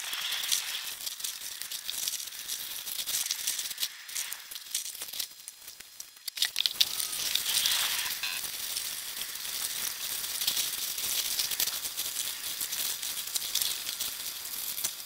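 Plastic zip-lock bags crinkling and crackling as they are scrubbed and wrung out by hand in a basin of soapy water, with water sloshing. The crinkling eases off for a moment about five seconds in, then picks up again.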